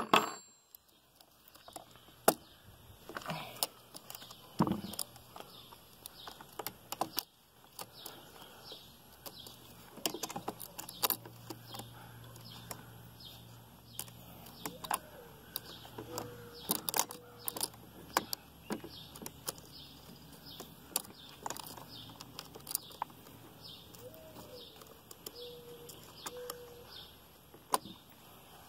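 Chainsaw chain links and bar clinking and rattling in irregular metallic clicks as the chain is handled and seated on the bar and sprocket before tensioning, with the engine off.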